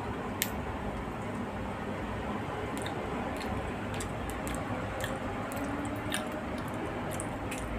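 Eating sounds: a spoon scooping sticky macapuno from a jar, with soft, wet chewing and scattered small clicks of the spoon against the jar.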